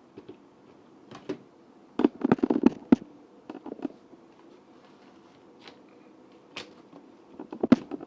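Plastic clicks and knocks from a blender cup being turned upside down and seated on its motor base, in several short clusters with the busiest around two to three seconds in and again near the end; the motor is not running.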